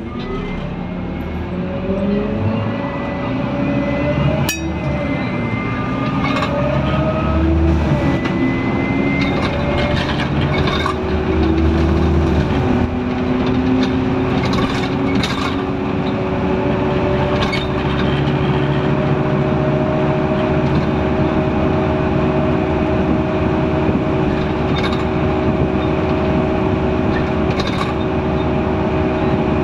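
Scania N230UD double-decker bus heard from on board, its five-cylinder diesel and transmission note rising in several steps as it accelerates and changes up, then holding a steady pitch through the second half as it cruises. Light rattles and clicks from the interior fittings come and go.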